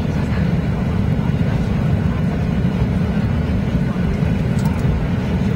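Steady low rumble inside the cabin of a Boeing 737-800 taxiing after landing, from its CFM56 engines and rolling gear.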